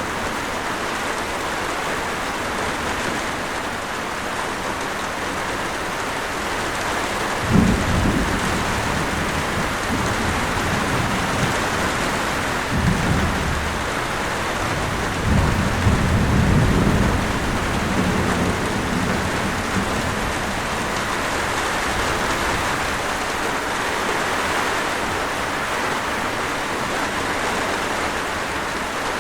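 Steady rain falling, with thunder: a sudden clap about seven seconds in, then two more rolling rumbles in the middle.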